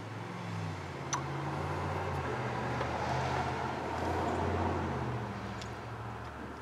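A road vehicle passing by, its noise swelling and fading over about four seconds, with a single light metallic tool click about a second in.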